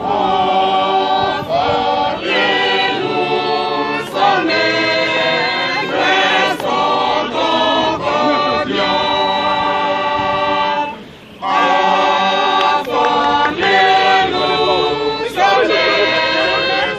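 A group of voices singing a hymn together without instruments, with a short break about eleven seconds in before the singing resumes.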